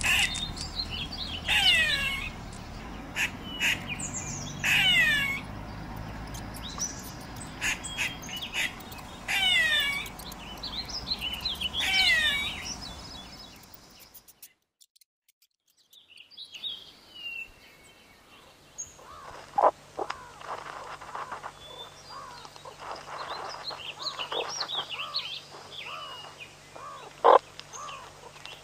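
Outdoor animal chirping: loud high chirps, each sweeping down in pitch, come every second or two. After a break of near silence about halfway through, fainter scattered chirps follow over a low steady hum, with a few sharp clicks near the end.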